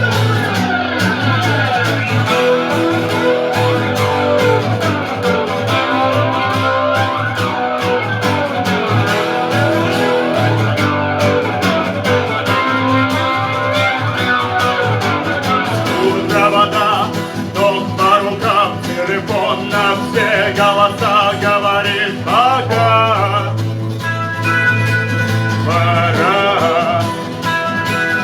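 Guitar-led rock music with a steady bass line; a wavering melody line comes in about halfway through.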